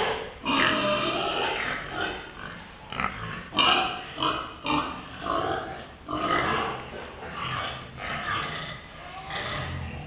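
Domestic pigs in pens vocalising in a steady run of short calls, several a second, with a louder call about a third of the way through.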